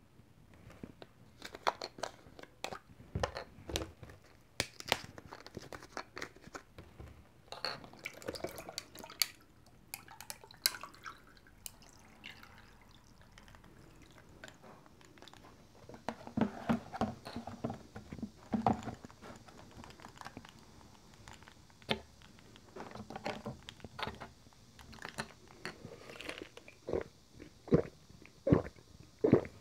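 Sharp clicks and taps as coconut-water cartons and their plastic screw caps are handled, then coconut water poured from a carton over ice into a glass, with some ice clinking. Near the end, evenly spaced gulps as the drink is swallowed from the glass.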